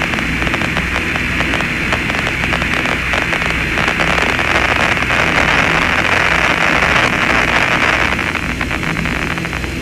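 Steady static hiss of an open radio channel, with a low hum and faint crackle underneath and no voice.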